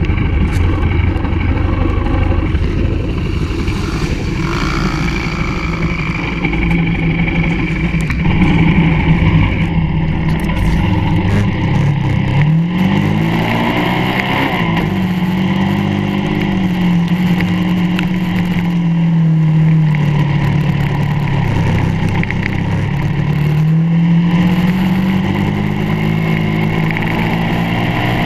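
Kart cross off-road buggy's engine running hard, heard close up from on board; from about halfway through the revs repeatedly rise and fall as it drives over the muddy ruts.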